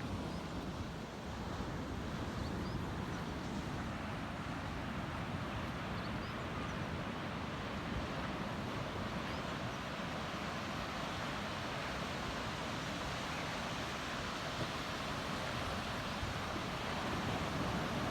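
Steady wash of ocean surf, with wind blowing on the microphone.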